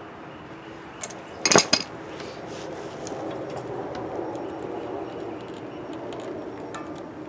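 Metal clinks from a hose clamp and fuel-line fitting being handled while fitting a fuel line: a sharp double clink about a second and a half in, then quieter fiddling noise.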